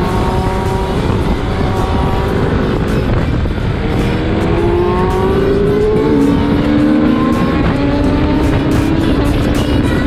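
Single-cylinder engine of a KTM RC sportbike accelerating, its pitch climbing and falling back at a gear change about six seconds in, over heavy wind rush.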